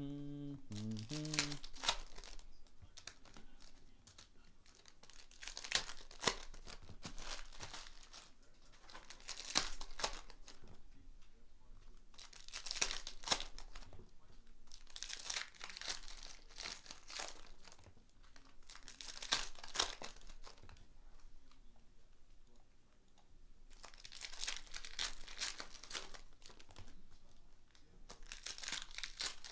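Foil retail packs of Panini Prizm basketball cards being torn open and their wrappers crinkled by hand, in repeated bursts of rustling every few seconds.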